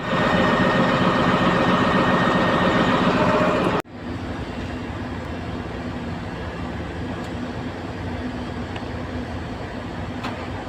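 Heavy machinery running steadily: a loud, dense mechanical roar that cuts off abruptly just under four seconds in, then a quieter steady engine drone.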